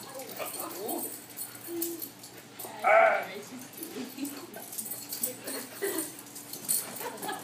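Puppies play-fighting, giving short whines and yips, with one loud, high yelp about three seconds in.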